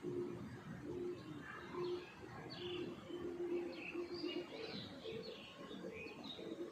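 Birds calling: low, repeated cooing notes like a dove's, with short higher chirps from small birds mixed in.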